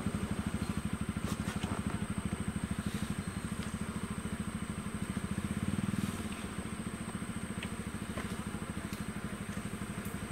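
A vehicle engine idling with a steady, fast pulse, swelling a little about six seconds in and then settling back.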